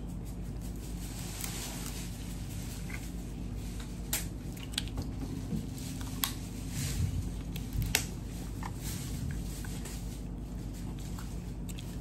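Dungeness crab shell being cracked and pulled apart by hand, close to the microphone, with a few sharp snaps in the middle and soft wet picking and eating sounds.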